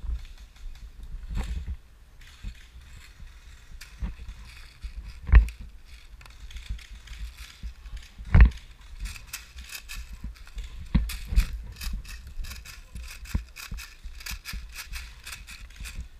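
Airsoft guns firing in a game: scattered sharp clicks and mechanical clatter, with two loud knocks about five and eight seconds in. From about nine seconds in, the shots come thick and fast. Low thumps of handling and movement rumble on the microphone throughout.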